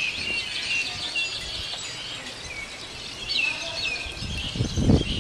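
Many small birds chirping and twittering together. Low rumbling noise comes in about four seconds in and is the loudest part near the end.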